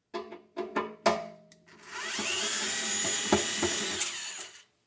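A few light clicks and knocks, then a cordless power screwdriver runs for about three seconds, its whine rising as it spins up and falling as it stops, backing out a screw from an espresso machine's casing.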